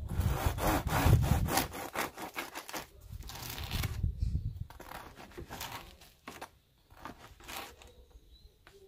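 A long bread knife sawing back and forth through a crusty sourdough loaf, the crust rasping with each stroke. The strokes are loudest in the first few seconds, then grow softer.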